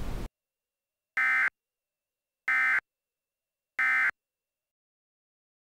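Emergency Alert System digital data tones: three identical short buzzy bursts about a second and a quarter apart, the end-of-message code that closes an EAS alert. A hiss cuts off just before them.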